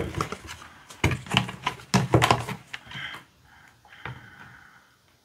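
Sauce ingredients being handled at a tabletop: a wooden spoon, bowl and bottles give a run of sharp clicks and knocks for the first three seconds. Near the end comes a faint trickle as soy sauce is poured from a large bottle onto a wooden spoon.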